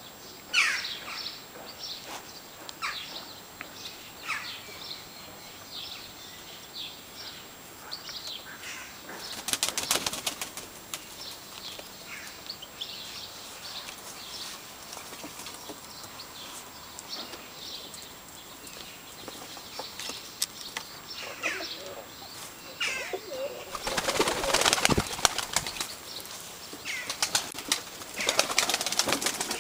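Turkish tumbler pigeons' wings flapping in clattering bursts, once about ten seconds in and again in a longer stretch near the end. Short, high bird chirps come repeatedly over the first third.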